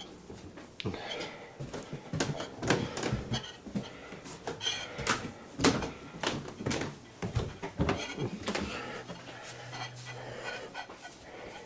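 Handling noise: irregular knocks, clicks and scrapes as a bowl and fork are moved about by hand.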